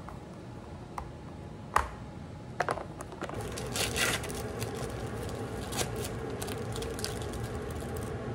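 Hard plastic food-container lid knocking and clicking a few times, the loudest knock just under two seconds in. Then the thin plastic wrapper of a processed cheese slice crinkles as it is peeled off, over a steady low hum.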